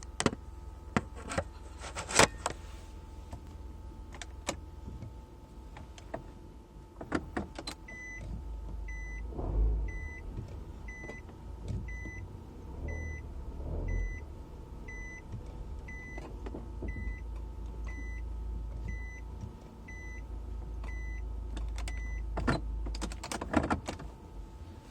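Nissan Serena C25 engine running, with a few sharp clicks in the first seconds. About eight seconds in, the low rumble of the engine under load grows and a warning chime starts beeping about once a second for some fourteen seconds, over an intermittent abnormal noise from the engine room that the dealer put down to a faulty fan-belt tensioner.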